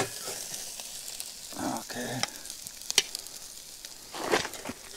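Burger patties sizzling on a grill grate over a fire pit, a steady hiss with a few sharp clicks.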